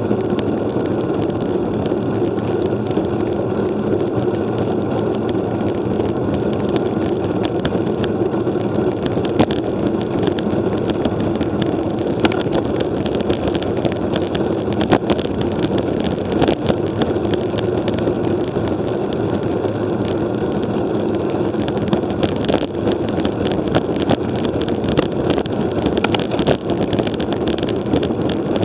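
Wind rushing over the microphone of a camera on a road bike at speed, with steady road noise and many irregular small clicks and rattles, more frequent in the second half.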